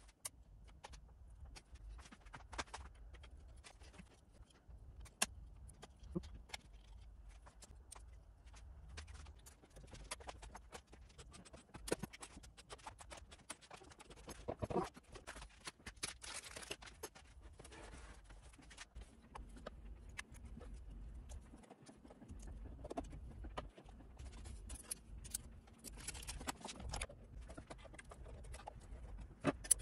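Quiet scattered clicks and clatter of hand tools, screws and small metal parts being handled while working on an amplifier chassis. A faint steady hum comes in for several seconds past the middle.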